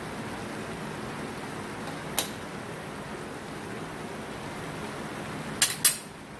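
A pan of chicken, bacon and vegetables in a little liquid sizzling steadily on the stove. A sharp click sounds about two seconds in and two more close together near the end.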